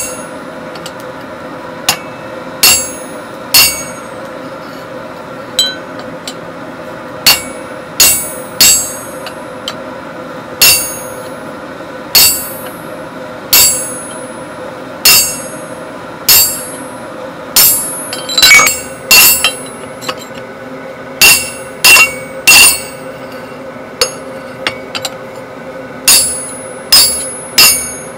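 Hand hammer striking a hot-cut chisel that is held on a red-hot iron bar on the anvil, splitting the end of the bar. About two dozen ringing metallic blows come at an uneven pace, roughly one a second with short pauses, over a steady low hum.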